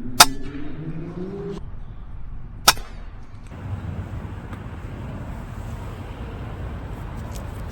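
FX Impact M3 .22-calibre PCP air rifle firing twice, two sharp cracks about two and a half seconds apart.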